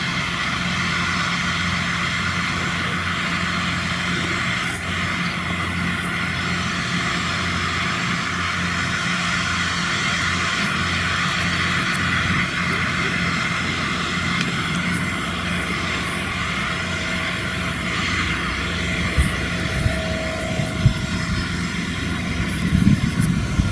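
John Deere 8600i self-propelled forage harvester running steadily: a deep engine hum under a constant high machine whine, with a Claas tractor and rake passing close by. The low rumble swells louder near the end.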